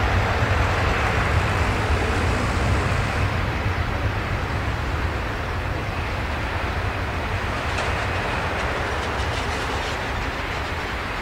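Four-engined Airbus A340-300's CFM56 jet engines running with a steady roar as the airliner rolls along the runway, the noise slowly fading as it moves away.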